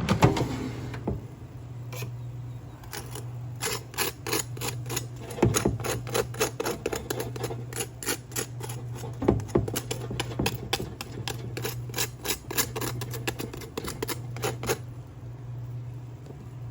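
Oil crackling and popping as pork chops fry in a pan: many irregular sharp pops, thickest from about three seconds in, over a steady low hum.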